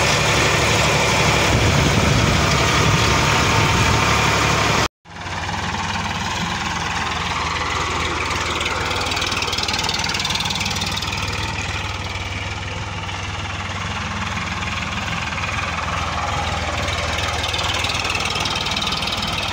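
Sonalika DI-745 III tractor's three-cylinder diesel engine running steadily, heard from the driver's seat while driving. About five seconds in the sound cuts out abruptly. It comes back a little quieter, with the engine working as the tractor pulls a plough through the soil.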